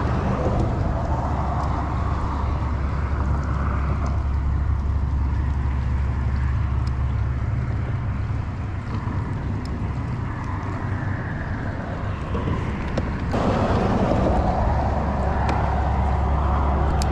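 Steady low rumble of wind buffeting the microphone, mixed with road traffic noise from the highway bridge, growing louder about thirteen seconds in.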